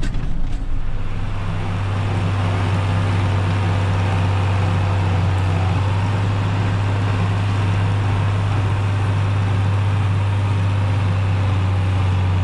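John Deere tractor engine running at steady revs: a loud, even, low drone that settles in about a second in, heard from inside the cab.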